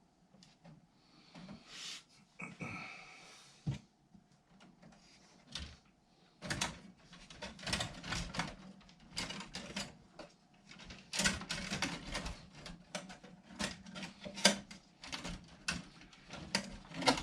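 Repeated clicks, knocks and rattles of hardware being handled, sparse at first and busy from about six seconds in, with the loudest knock about fourteen seconds in.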